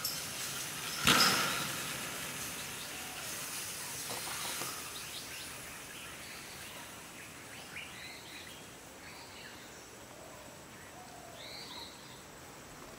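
Birds chirping in short, scattered calls over outdoor background noise. A sudden loud rushing noise about a second in fades away over roughly a second.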